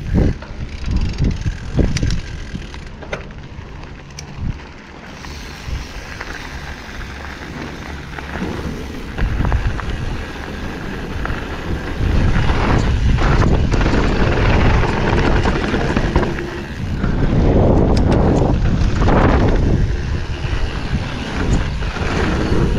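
Commencal Supreme DH29 downhill mountain bike being ridden, heard from a GoPro on the bike. There are scattered clicks and knocks at first. From about twelve seconds in, a loud steady rush of wind on the microphone and tyre rumble takes over as speed builds.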